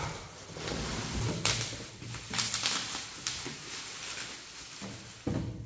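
Rustling with scattered clicks and knocks of hands handling a box and its packing while unpacking a motorcycle top box.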